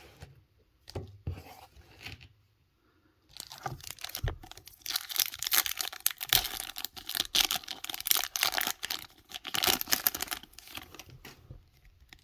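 Foil booster-pack wrapper being torn open and crinkled: a few faint rustles first, then several seconds of dense crinkling and tearing.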